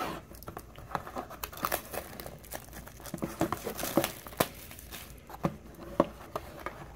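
Clear plastic shrink-wrap being torn and peeled off a cardboard box of trading cards, crinkling and crackling irregularly throughout.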